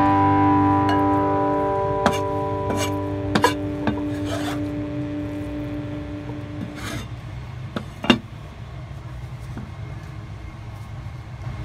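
Cleaver blade scraping across a cutting board and tapping as minced chicken is scooped up and tipped into a bowl: a handful of short scrapes and sharp taps, the clearest about two, three and a half and eight seconds in. Background music fades out under them over the first several seconds.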